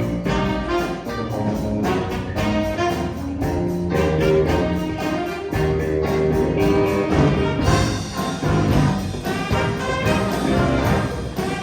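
Saxophone ensemble of alto, two tenor and baritone saxophones, with bass guitar and piano, playing a jazz tune. The top end brightens about eight seconds in.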